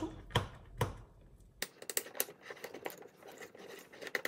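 A spoon stirring a thick paste of ground rice and starch in a small glass bowl, scraping and clicking against the glass. Two sharp clicks come in the first second, then a run of quick, light, irregular scrapes.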